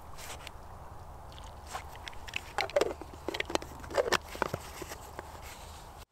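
Footsteps crunching through snow. An uneven run of crunches starts about two seconds in and is loudest in the middle, over a steady low rush.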